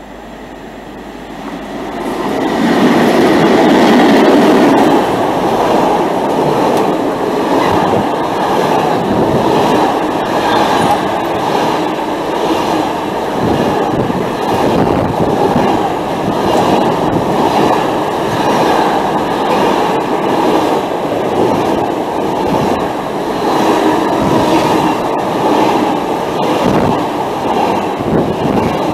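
Intermodal container freight train passing close by: the locomotive comes by loudest a few seconds in, followed by a steady rumble of container wagons with regular clickety-clack of wheels over the rail joints.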